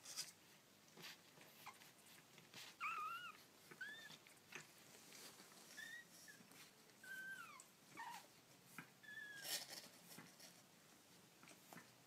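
Young kittens mewing: about six short, high-pitched mews, some rising then falling, among soft rustles and small taps.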